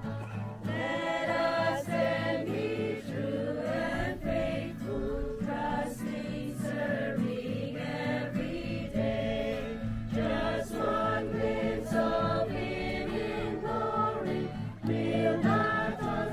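A group of voices singing a Christian song over sustained instrumental chords.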